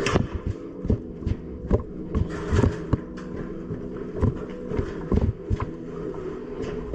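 Uneven thumps and knocks, a few a second, from an airsoft player moving on foot with gear: footsteps, with a steady low hum underneath.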